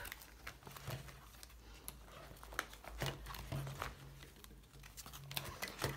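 Clear plastic photocard binder sleeves crinkling and rustling as cards are handled and a page is flipped, with scattered light clicks and taps.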